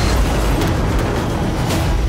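Film sound of a Boeing 747 crashing through a hangar: a loud, dense rumble of crushing metal and debris with score music mixed in, and a sharper hit near the end.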